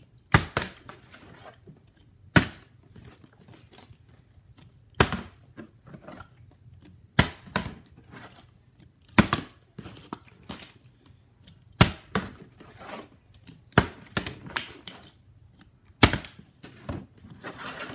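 A partly filled plastic water bottle being flipped again and again and landing on a wooden floor: a sharp thud roughly every two to three seconds, with smaller plastic clicks and crinkles between the landings as it is picked up.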